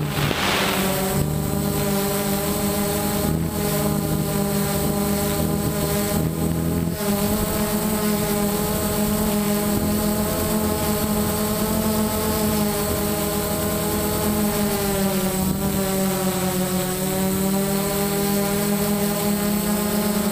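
DJI Phantom 1.1.1 quadcopter's four motors and propellers whining steadily, heard close from the camera on its own frame. The pitch wavers slightly and sags for a couple of seconds about sixteen seconds in, then recovers. A brief rush of hiss comes in the first second.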